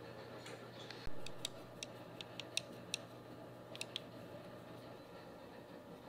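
A single knock about a second in, then a string of light, sharp clicks over the next three seconds: a paintbrush tapping against a plastic watercolour palette as paint is mixed in it. A low steady hum runs underneath.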